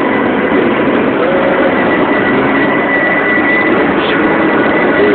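Steady engine and road noise heard from inside a moving car's cabin.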